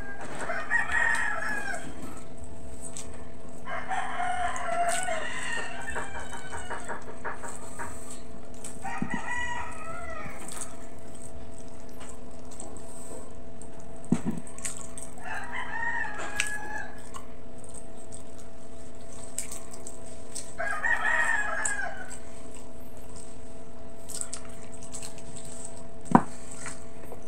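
Roosters crowing, about five crows several seconds apart, over a steady low hum. Two sharp knocks, one about halfway and a louder one near the end.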